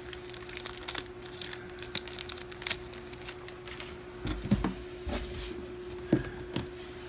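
Handling noise: a small plastic accessory clicking and rustling in the hands, then hands rummaging in a cardboard box of packed accessories, with a few soft knocks about four to six seconds in. A steady faint hum runs underneath.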